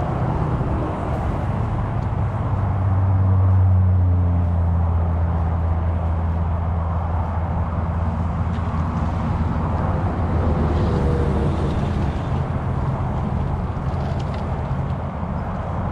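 A low, steady engine drone, swelling about three seconds in and easing off slowly, over a steady rushing noise.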